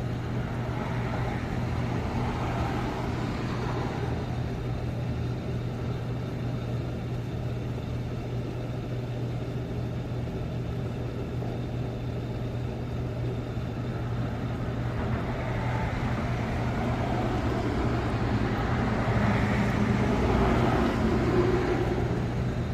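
Motor vehicle noise: a steady low hum with a rush of broader noise that swells near the start and again in the second half, like traffic going by.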